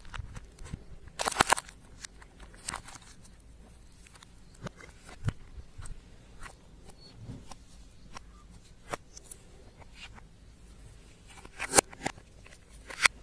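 Slime being pressed and mixed by hand, making irregular sticky clicks and crackling pops, with louder bursts of crackling about a second in and near the end.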